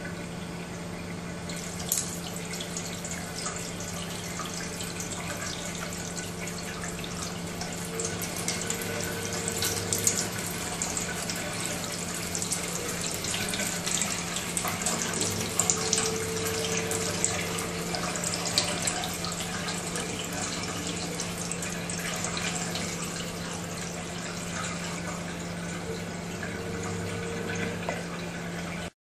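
Kitchen mixer tap running, its stream splashing into a stainless steel sink. The splashing grows louder from about two seconds in as the tap is turned up, over a steady low hum, and it cuts off suddenly near the end.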